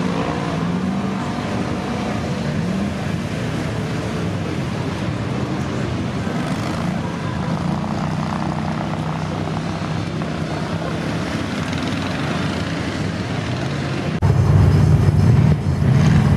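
The V-twin petrol engine of an Argo Avenger 8x8 amphibious ATV (Kohler Aegis LH775) running under load, its pitch rising and falling as the throttle changes. About fourteen seconds in the sound cuts to a much louder, harder-working engine.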